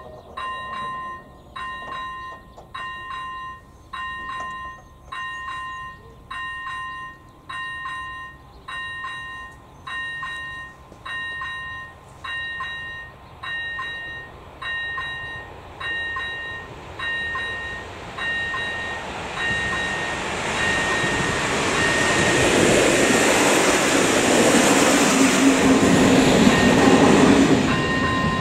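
Electronic level-crossing warning bell (ZV-02) chiming a two-tone ding a little more than once a second, signalling an approaching train while the barriers are down. From about halfway through, the noise of the approaching train rises until it is louder than the bell.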